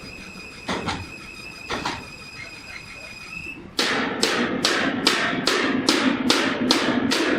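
A few separate knocks over a steady high whine, then, about halfway through, a regular run of sharp strikes about three a second, each ringing briefly.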